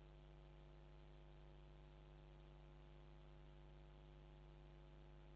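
Near silence: a faint, steady electrical hum.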